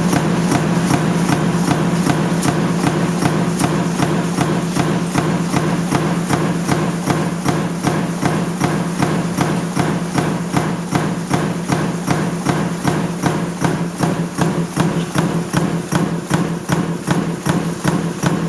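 Sheet-metal stamping press running continuously, a steady machine hum with a regular clank of the die strokes about three times a second.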